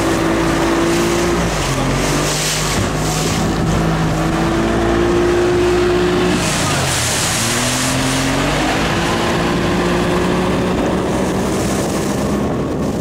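Small boat's outboard motor running close by, its engine note dipping and rising a few times.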